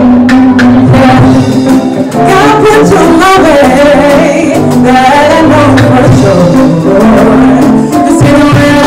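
A woman singing a song live into a microphone, backed by a band of electric guitars, drum kit and keyboard.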